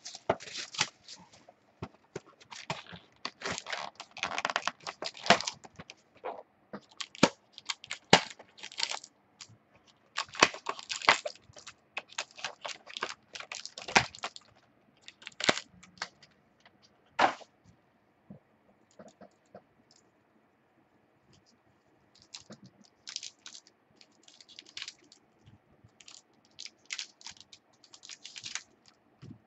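Sports card packs being torn open and their wrappers crinkled, with irregular sharp crackles and rustles as the cards are handled. The noise stops for a few seconds past the middle, then resumes more softly.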